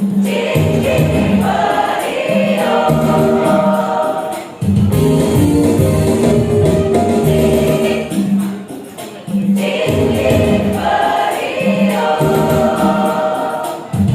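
Women's choir singing in sustained, held notes, phrase by phrase, with short breaks between phrases about four and nine seconds in.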